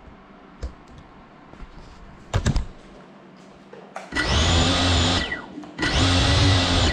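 GEPRC FPV drone's brushless motors and propellers spun up twice in short bursts of about a second each, with a whine that falls away as the motors wind down after each burst. A few light knocks from handling come before.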